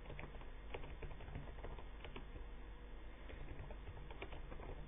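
Typing on a computer keyboard: a string of faint, quick, irregular key clicks as a line of text is typed.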